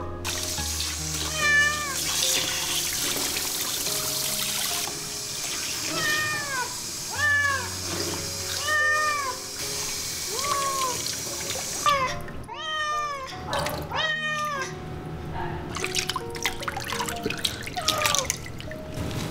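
Ragdoll cat meowing again and again in short calls that rise and fall, most closely bunched after about twelve seconds, while water runs from a hand shower hose onto it in a tub until about twelve seconds in.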